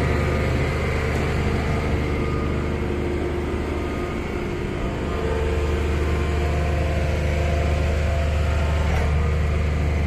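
Heavy site machinery engine running steadily at a constant speed: a low, even drone with a few held hum tones above it.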